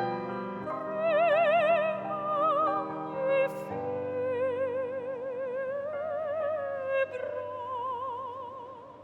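Operatic singing in a high voice, holding long notes with a wide vibrato over sustained instrumental accompaniment. It fades down near the end.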